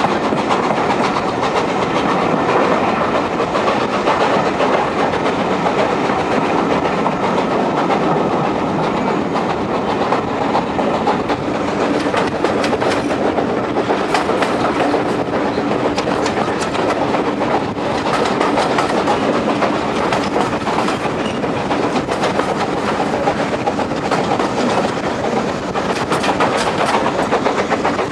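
Steam-hauled passenger train running over jointed track, heard from an open carriage window: a steady rumble and rush of air, with the wheels clicking over the rail joints, more sharply in the second half.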